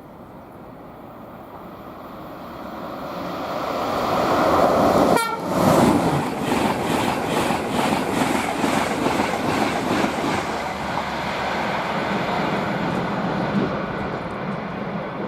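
Class 91 electric locomotive with its Mark 4 coaches and driving van trailer passing at speed. It builds to a peak about five seconds in as the locomotive goes by, then settles into a steady rush of passing coaches with rhythmic clicks from the wheels. The driver gives a tone on the horn as it passes.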